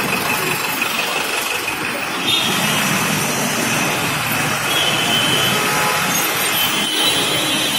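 Steady road traffic noise from car and truck engines running in slow, congested traffic.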